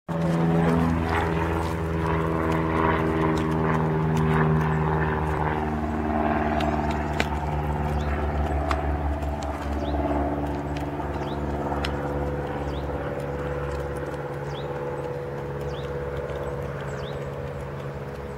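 A steady engine drone with an even stack of tones, its pitch shifting slightly in the first second. Over it come sharp taps as hens peck dried mealworms from a small tub, and a few short, high, falling chirps in the second half.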